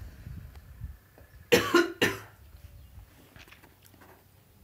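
A person coughs twice in quick succession, about a second and a half in.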